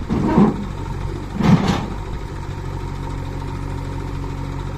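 Diesel engine of heavy farm or construction machinery running steadily, with two short surges of revving in the first two seconds.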